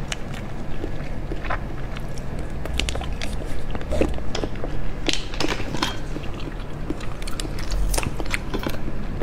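Close-miked mouth sounds of jelly being sucked and squeezed from a plastic stick sachet and chewed: wet slurps, smacks and clicks. Near the end a second plastic sachet is handled.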